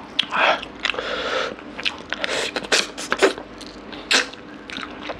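Close-miked eating sounds of mutton curry eaten by hand: wet fingers working through meat and gravy, then lips smacking and sucking, with many short sharp clicks and a few brief slurps.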